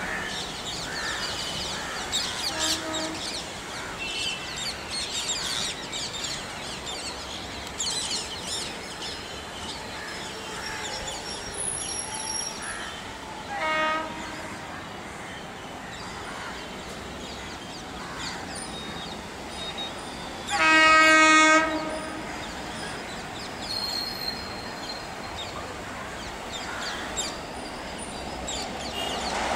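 Indian Railways WAP7 electric locomotive's air horn: a short toot about halfway through, then a longer, loud blast about two-thirds of the way in, over the steady background noise of the approaching train.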